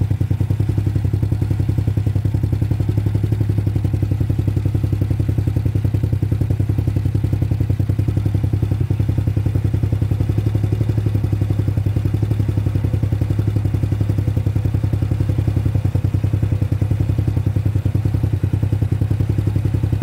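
Trailmaster Challenger 300 go-kart engine running steadily on its newly replaced carburetor, with an even, rapid beat and no change in speed.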